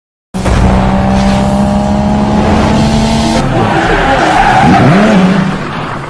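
Produced intro sound effect of a racing car: engine at high revs with tyres squealing. It starts abruptly and changes character about halfway through, with a pitch that dips and swings back up, then fades away near the end.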